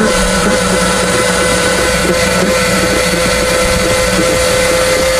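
An engine running steadily at a constant pitch.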